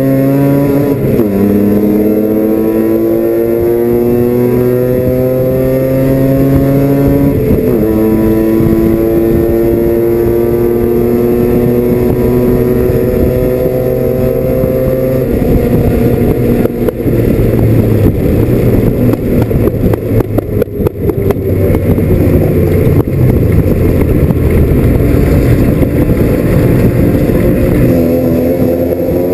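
Mazda RX-7 FC's 13B two-rotor rotary engine heard from inside the race car's cabin, pulling with rising pitch through two upshifts, about a second in and again about seven seconds in. About halfway through the driver comes off the throttle and the note turns rough and crackly as the car slows, then it starts rising again under acceleration near the end.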